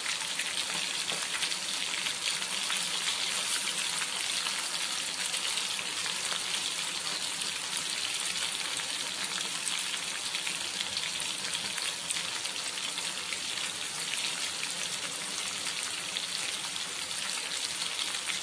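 Whole prawns coated in masala and corn flour deep-frying in hot oil: a steady sizzle with dense fine crackling.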